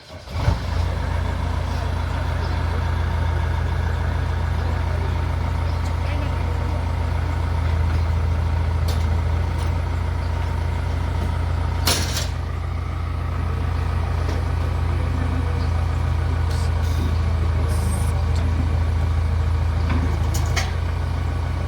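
JCB 3DX backhoe loader's diesel engine starting up and then running steadily at a low, even speed. One sharp knock about twelve seconds in.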